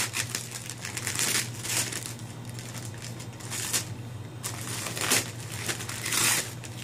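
Wrapping paper being torn and crumpled as a gift is unwrapped, in irregular rustling bursts.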